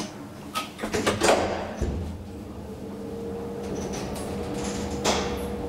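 Deve Schindler hydraulic elevator's cab doors sliding shut, with clicks and a dull thud as they close about two seconds in. A steady low hum and a faint whine follow as the hydraulic drive starts to run.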